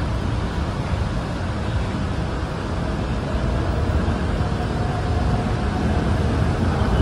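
Steady low rumble of road traffic, with a faint steady hum above it.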